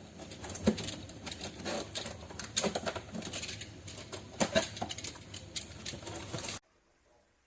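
Irregular clicks, taps and rustles of objects being handled, with a few sharper knocks, cutting off abruptly near the end.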